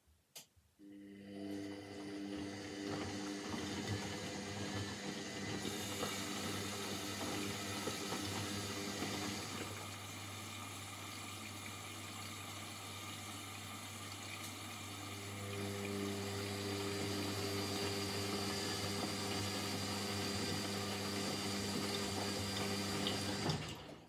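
Indesit front-loading washing machine with water rushing through it, over a steady hum. It starts abruptly about a second in, eases off in the middle and cuts off suddenly just before the end.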